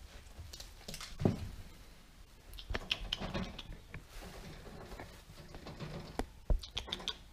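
Scattered rustling and light taps as a pet rabbit is handled on a towel over a wood floor, with two soft thumps, about a second in and near the end.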